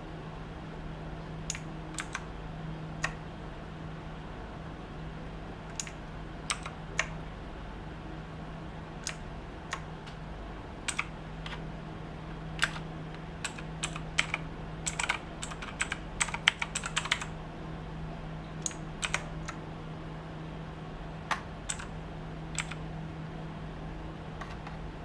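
Keys of a Redragon K586 BRAHMA mechanical keyboard with Outemu optical blue switches being pressed: single clicks here and there, and a quick run of keystrokes about midway. A steady low hum runs underneath.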